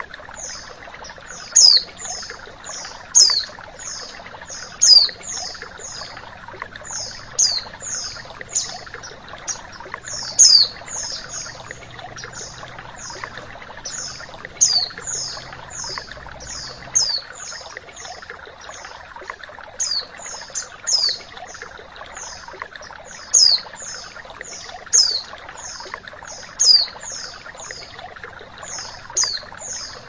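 Female white-eye (pleci) calling in a fast run of short, high-pitched, downward-sweeping chirps, several a second, with louder chirps every second or two, over the steady rush of flowing water.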